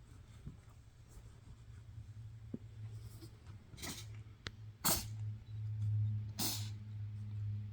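A cat sneezing four times, each a short sharp burst, about a second apart, with a steady low hum underneath. The sneezing is a symptom that the vet put down to a pollen allergy.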